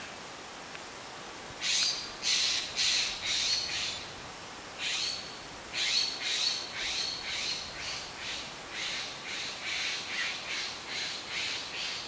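An unidentified animal gives a string of harsh, raspy calls, about two a second. A run of five begins a second and a half in, followed by a short break, then a longer unbroken run. A steady breeze hiss lies underneath.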